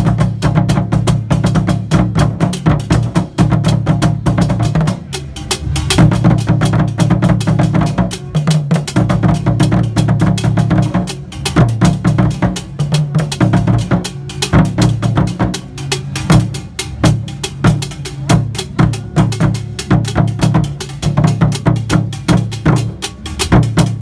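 Akan fontomfrom drum ensemble playing, its large drums beaten with curved sticks in a dense, fast rhythm of deep strokes.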